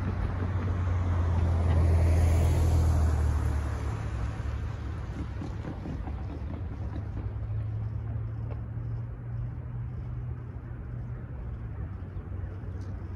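Cars driving over the crossing. One passes loudly, swelling and fading within the first few seconds, then a steadier, quieter engine and tyre hum follows as another vehicle comes through.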